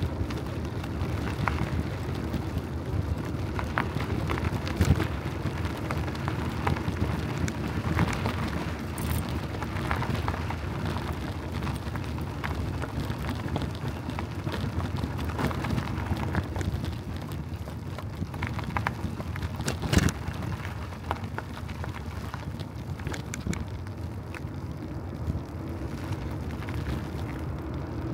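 Riding noise from a bicycle: a steady rush of wind and rolling tyres, broken by frequent short clicks and knocks, the loudest about 5 and 20 seconds in.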